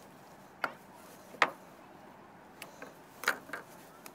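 A kitchen knife tapping and knocking on a plastic cutting board while bonito are filleted: about five short, sharp clicks at uneven intervals, the loudest about a second and a half in and two close together near the end.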